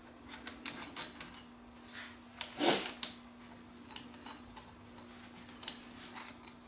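Small parts being handled on a workbench: scattered light clicks and taps, with one louder brief rustle about two and a half seconds in, over a steady low hum.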